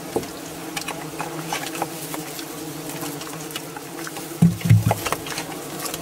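Flies buzzing in a steady low drone, with many small ticks and taps. A brief louder low sound comes about four and a half seconds in.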